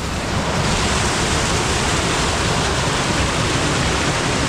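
Steady rushing of a waterfall, a dense even wash of water noise that swells slightly about half a second in.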